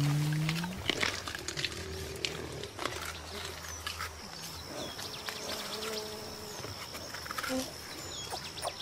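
A mountain gorilla feeding on ground vegetation: a low hum-like call ends with a slight upward slide just under a second in, then stems and leaves crackle and snap with a few soft low grunts. From about four seconds in a thin, steady high-pitched whine runs underneath.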